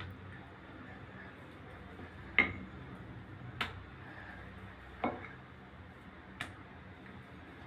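Four sharp clacks of a wooden rolling pin against a hard countertop while luchi dough is rolled out, spaced a little over a second apart, the first the loudest.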